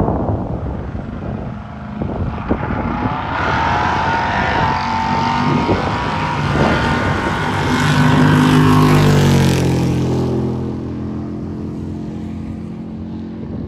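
A race car's engine running hard on a drag strip pass. It grows louder to a peak about eight to nine seconds in, then fades as it goes away.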